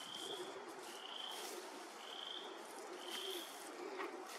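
A small wild animal's short, high, buzzy calls, repeated at an even pace of about one a second, faint over an outdoor background hiss.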